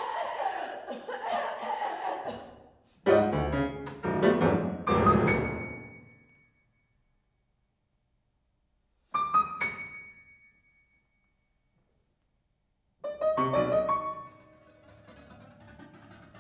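Yamaha grand piano in a contemporary piece, sounded both from the keys and inside on the strings with a stick or mallet. A dense, rough texture at the start gives way to loud chord clusters that ring and decay into silence. After a pause, two sharp struck notes ring out about nine seconds in, and after another pause loud attacks about thirteen seconds in leave a sustained tone fading away.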